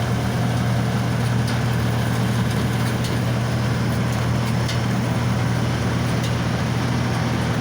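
Engine of a rice paddy harvesting machine running steadily as it cuts paddy, a constant low hum with a few faint ticks.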